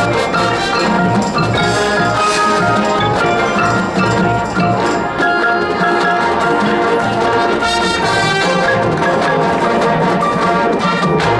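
High school marching band playing, with brass and a percussion section including mallet instruments.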